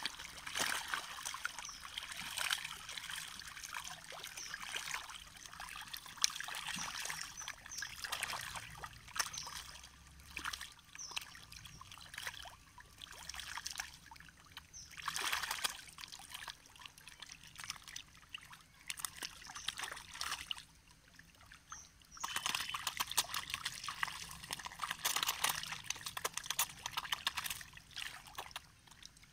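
A dense mass of catfish thrashing and splashing at the water's surface in a feeding frenzy, a crackling churn of many small splashes. It swells and fades, with busier stretches at the start, about halfway, and in the last third.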